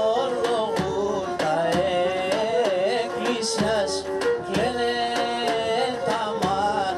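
Pontic Greek folk music: a wavering, ornamented sung melody over held drone notes, with regular strikes on a large double-headed daouli drum about every half second.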